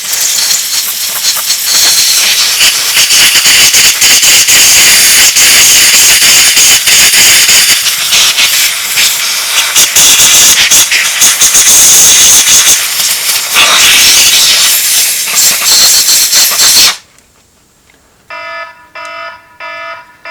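Compressed air hissing loudly from an air-hose blow gun as it blows out a carburetor float bowl, cutting off suddenly about three-quarters of the way through. Shortly after, a phone starts ringing with a repeating electronic ringtone.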